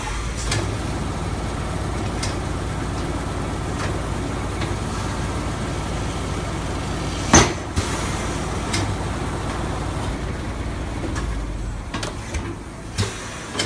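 Tyre changer machine running steadily as a tyre is worked off its wheel, a low motor drone with metal knocks and one sharp clank about seven seconds in; the drone stops about twelve seconds in.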